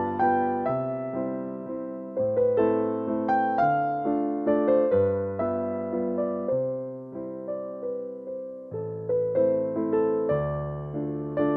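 Soft background piano music: a melody of single struck notes that fade, over low bass notes.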